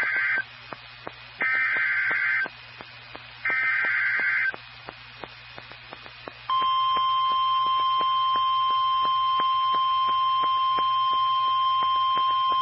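NOAA Weather Radio SAME alert header: the end of one screechy two-tone data burst, then two more one-second bursts about a second apart. About six and a half seconds in, the steady 1050 Hz warning alarm tone starts and holds. Together they signal that a warning is about to be broadcast. Faint regular clicking runs underneath.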